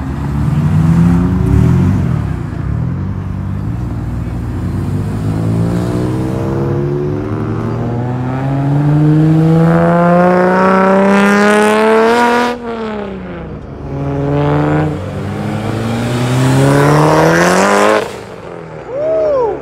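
Car engine accelerating hard: its note climbs steadily in pitch, drops sharply at an upshift, climbs again, then cuts off abruptly near the end.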